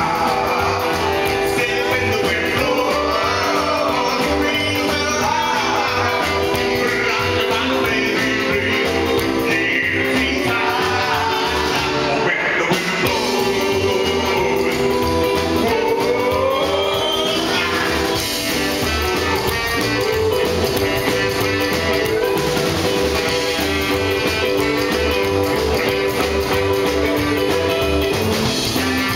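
Live rockabilly band playing rock and roll: a man singing lead over electric guitar, saxophone, upright bass and drums, at a steady level.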